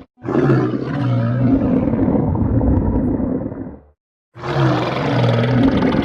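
Stomach growling, loud and rumbling, broken by abrupt short gaps of silence just after the start and again about four seconds in.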